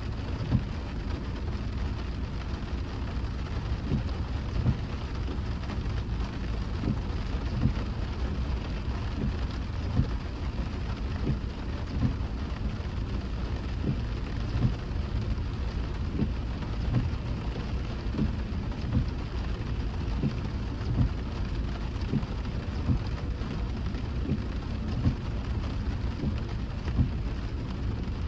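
Car driving in the rain: a steady low road rumble under the hiss of rain, with a light thump about every two seconds.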